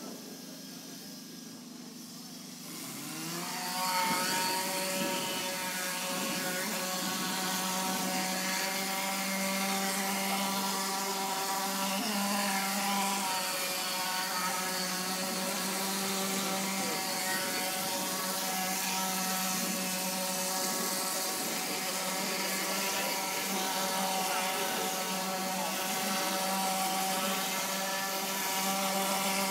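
Plaster spraying machine and its spray gun at work: a steady humming drone from the machine sets in about three seconds in, over a continuous hiss from the gun as it sprays plaster onto the wall.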